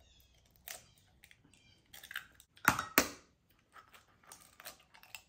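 Egg cracked against the rim of a glass Pyrex measuring cup: two loud knocks about a third of a second apart near the middle, with smaller clicks of shell being handled and pulled apart.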